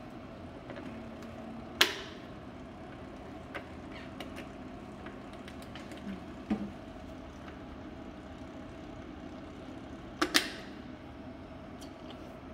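Steady hum of a TECOtherm NEO neonatal cooling unit running while water is drawn from a bottle into its mattress circuit. Sharp clicks and knocks of the plastic water bottle and tubing being handled against the machine come about two seconds in, around six and a half seconds, and as a quick double knock near ten seconds.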